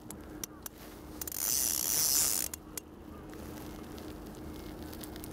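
Spinning fishing reel working under a squid's pull: a few sharp ticks, then a hissing whir lasting about a second.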